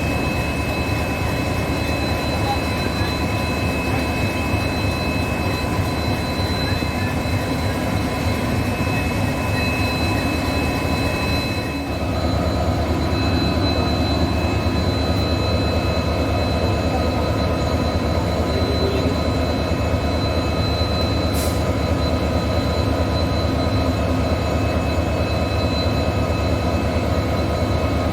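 Diesel locomotive engines running steadily, a deep rumble under constant high-pitched whines. About twelve seconds in the sound changes abruptly to a slightly louder engine with a different whine, as if switching from one locomotive to another (the video pairs an ALCO and an EMD).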